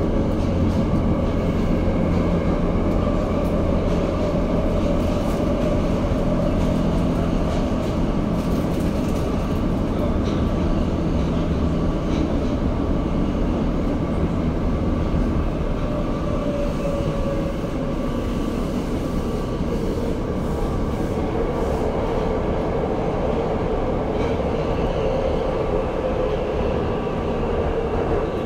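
Tokyo Metro Marunouchi Line 02 series subway train running between stations: a steady rumble of wheels on rail. The deep rumble eases about halfway through, and a humming tone that shifts in pitch comes up near the end.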